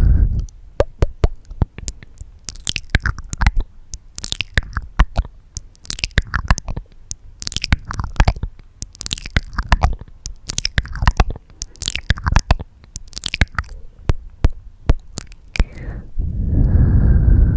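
Close-miked ASMR mouth sounds: rapid wet tongue clicks and lip smacks, with clusters of longer wet, sticky sounds. Near the end, a loud low rush of breath into the microphone sets in.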